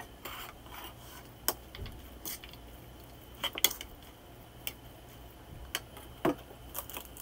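Metal spoon stirring and scraping a minced-meat stuffing in a plastic bowl, with scattered sharp clinks of the spoon against the bowl.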